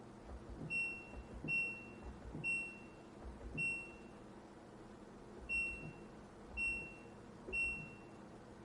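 Washing machine control panel beeping: seven short, high single beeps at the same pitch, spaced about a second apart with a longer gap in the middle, each with a soft thud just before it, over a faint steady hum.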